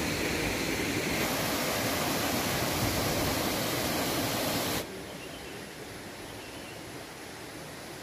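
Steady rushing noise of flowing water. It drops to a quieter rush about five seconds in.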